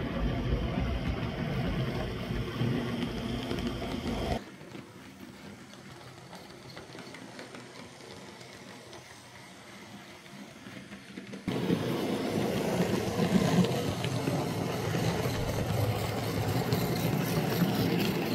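Roco model electric locomotives running on model track: the whir of the small electric motors and gears with the rattle of wheels on the rails. The sound drops abruptly to a faint level about four seconds in and comes back just as suddenly about seven seconds later.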